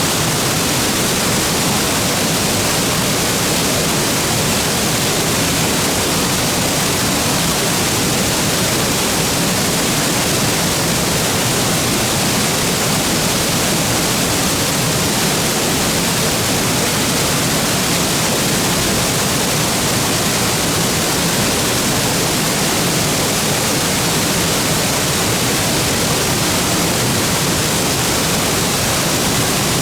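Waterfall: water falling into its plunge pool in a loud, steady rush with no change or pause.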